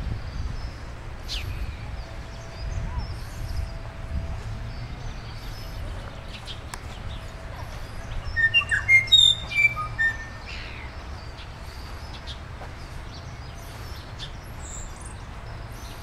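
Several songbirds chirping and calling, with a louder run of quick, bright notes about eight to ten seconds in, over a low background rumble.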